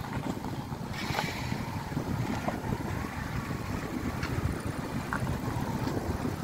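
Wind buffeting the microphone as a steady low rumble, with motor scooters running at low speed as they ride onto a river car ferry.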